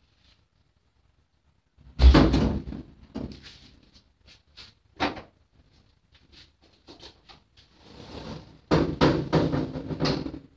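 Clanks and knocks from a slow-moving train carriage's metal fittings and couplings: a loud bang about two seconds in, scattered clanks, then a run of rattling knocks near the end.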